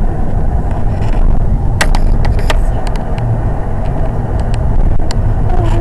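Steady low rumble of road and wind noise from a moving car at highway speed, with a few sharp clicks about two seconds in.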